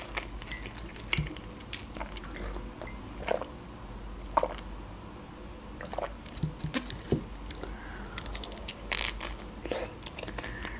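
A person chewing a bite of a fried pastry with berry filling close to the microphone, with soft wet mouth sounds and small clicks here and there.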